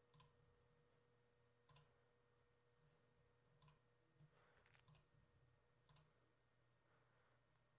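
Faint computer mouse button clicks, about five spread over several seconds, against near-silent room tone.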